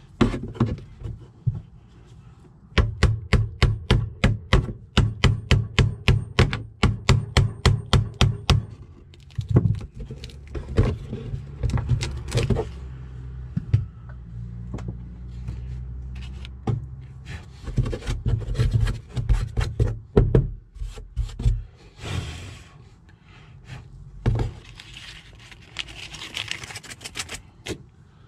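Hand work on wooden panelling: a quick, even run of knocks, about four a second for six seconds, then scattered thuds, rubbing and scraping against the wood.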